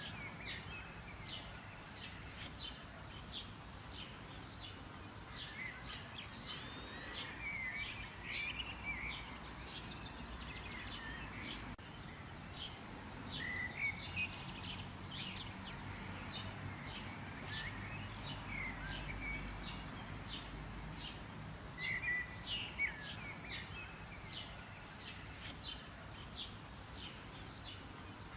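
Several birds chirping and singing, short repeated calls throughout, over a faint low background hum.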